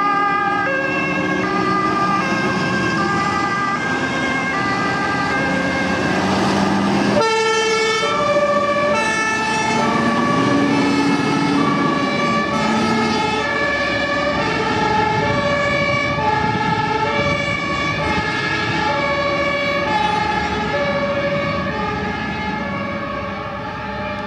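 Several German fire engines' two-tone sirens (Martinshorn) sounding at once at different pitches, each alternating between a high and a low tone, over the running of the trucks' diesel engines. The sound changes abruptly about seven seconds in, and it grows fainter near the end as the trucks drive off.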